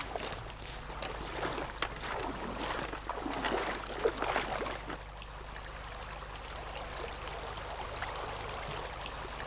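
Shallow river water splashing irregularly as someone wades through it. After about five seconds it settles into the steady, even rush of the flowing stream.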